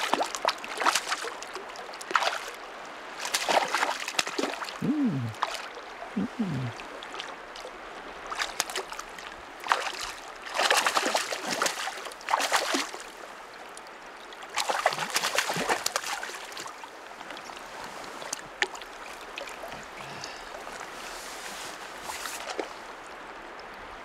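River water running over a shallow riffle, with repeated irregular splashes in the water.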